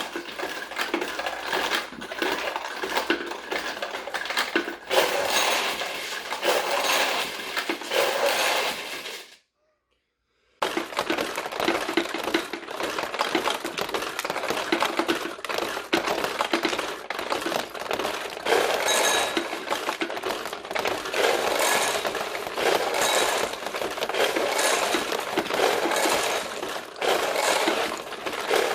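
Steel pachinko balls clattering through a 1974 Sankyo pachinko machine: a dense, continuous stream of metallic clicks and clinks as the balls run over the pins and through the mechanism. The sound cuts out completely for about a second about a third of the way in, then carries on.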